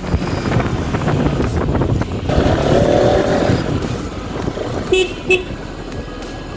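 Bajaj Pulsar RS200 single-cylinder engine running on a road test ride, freshly fitted with a new fuel pump, with traffic noise around it. A vehicle horn toots twice, briefly, about five seconds in.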